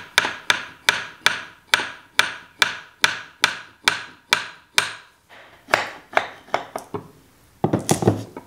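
A steel hammer lightly tapping the lower journal bearing of an 1890s Reed lathe's cast-iron headstock to work it loose. There are about a dozen sharp metallic taps at roughly two and a half a second, then a few slower ones. A short cluster of louder knocks comes near the end.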